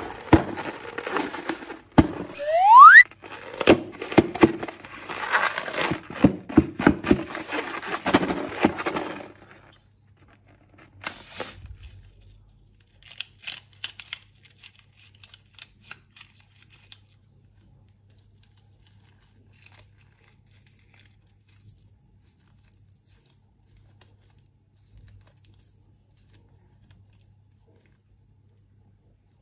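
Crinkling plastic and crackly, clicking handling noises of slime being mixed and squeezed from balloons and piping bags, with one short rising squeak between about two and three seconds. After about ten seconds the sound thins to scattered clicks, then dies away.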